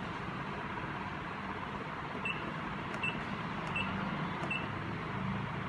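Steady machine running noise, with four short, high electronic beeps from medical equipment about three quarters of a second apart, beginning a little after two seconds in.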